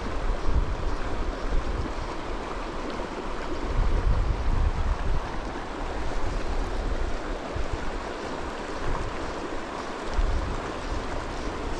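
A shallow mountain river running steadily over rocks in riffles, with gusts of wind buffeting the microphone now and then.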